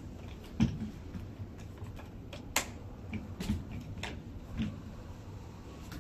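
Plastic and metal clicks and light knocks from a hand working a baby stroller's front swivel wheel assembly, about five separate strokes at uneven intervals. A knock about half a second in is the loudest, and a sharp click comes about two and a half seconds in.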